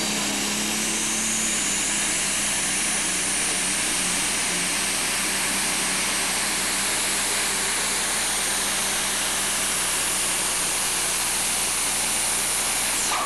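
Super stock pulling tractor's turbocharged diesel engine running flat out under heavy load as it drags the sled. It is a steady, unbroken roar of engine and exhaust with a high thin whine over it.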